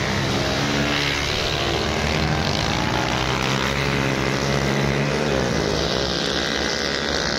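Several dirt-bike engines revving hard as the motorcycles race off down the track, their pitch rising and falling.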